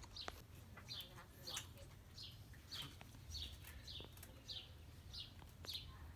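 A bird calling faintly, a steady series of short, falling chirps, a little under two a second.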